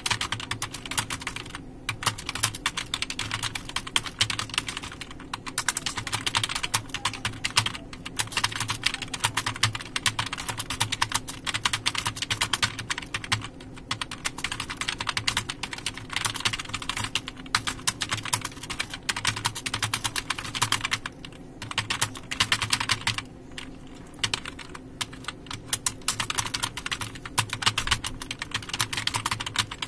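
Continuous fast typing on a computer keyboard: a dense run of key clicks, broken by a few brief pauses.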